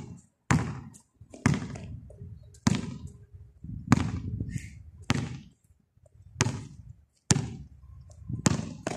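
Basketball dribbled slowly on a concrete court: about eight bounces a little over a second apart, each with a short echo.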